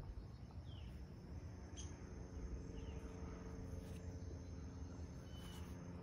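Faint outdoor morning ambience: a steady high insect trill with a few short bird chirps, and a couple of faint clicks.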